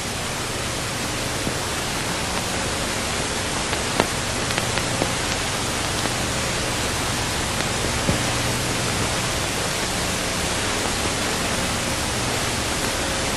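Steady hiss with a low hum underneath, the background noise of an old film soundtrack. A few faint ticks come through it, the clearest about four seconds in.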